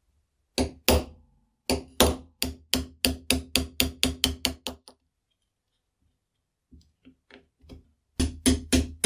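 Hammer blows in steady runs of about three strikes a second, each with a short ring. There are two single strikes at first, a few lighter taps partway through, and a second run of strikes near the end.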